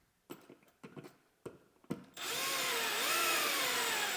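A few light knocks and clicks, then a power driver runs for about two and a half seconds, its motor whine rising and falling in pitch, setting a light switch's mounting screws into the electrical box.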